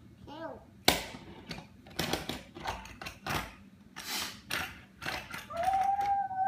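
Sharp plastic clacks and knocks of small toys handled against a wooden table and a plastic toy toolbox, the loudest about a second in. A toddler makes short vocal sounds, and a long, steady high vocal note begins near the end.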